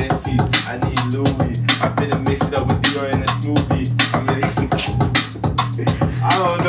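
Hip hop beat playing: a deep bass note held in pulses under fast, clicking hi-hat-style percussion.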